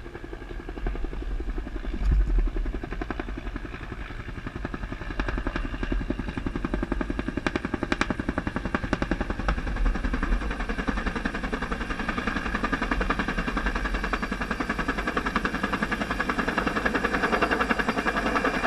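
Firefighting helicopter hovering low over the lake while it lowers its water bucket, its rotor blades beating a rapid, steady pulse that grows louder toward the end. A low rumbling burst on the microphone about two seconds in.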